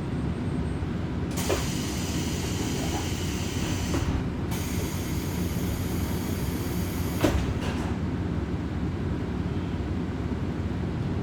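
Diesel railcar running along the line, heard from inside the car: a steady low engine and wheel rumble. A hissing rush joins about a second in and lasts some six seconds, broken briefly in the middle, with a few sharp knocks from the wheels on the track, the loudest about seven seconds in.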